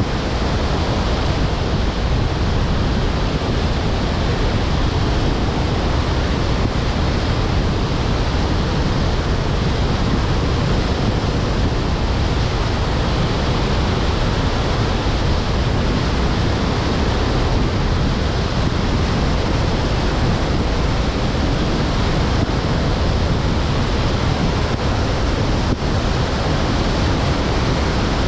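Wind and road noise on the microphone of a camera mounted outside a moving car: a steady rushing hiss with a heavy low rumble.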